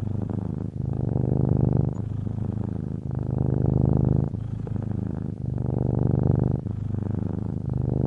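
Domestic cat purring, a fast fluttering rumble that swells and eases with each breath, louder on every other phase about every two and a half seconds.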